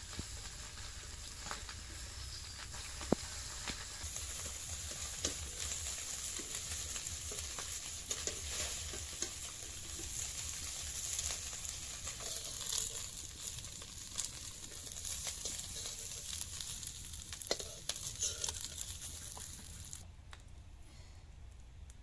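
Small kotti fish frying in oil in a metal wok over a wood fire, sizzling steadily while a metal spatula stirs and scrapes them with small clicks. The sizzle grows stronger about four seconds in and drops off sharply near the end.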